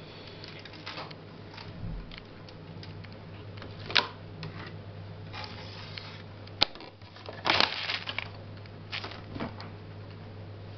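Hands handling a clear plastic seedling tray over a metal tray while potting African violet seedlings: scattered light clicks and rustles, with a sharp click and a brief rustling clatter about seven to eight seconds in as the plastic tray is moved into place. A low steady hum runs underneath.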